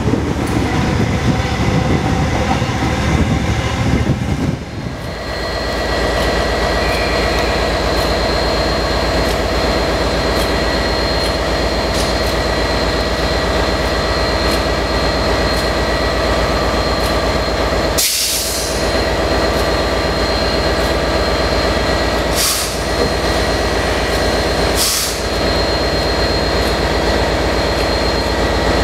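For the first five seconds a loco-hauled coach runs along the track with wheel rumble. Then comes a steady drone from Class 67 67018's EMD V12 two-stroke diesel idling as the train stands at the platform. In the second half three short hisses cut in.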